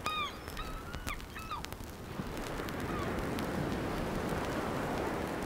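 Birds calling, several short arched calls in the first second and a half. Then a steady rushing noise swells up and holds.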